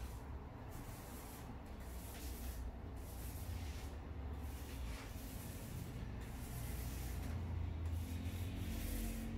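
Mini paint roller with a felt sleeve rolling chalk paint onto a wooden drawer front: a soft swishing hiss that swells and fades with each back-and-forth stroke, about six strokes, over a low steady rumble.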